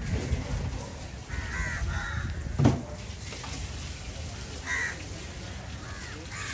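Crows cawing several times in short calls, over a steady low background rumble. A single sharp knock about two and a half seconds in is the loudest sound.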